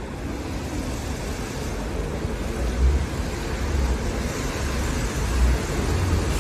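City bus engine running close by, a steady low rumble under street traffic noise that grows slightly louder.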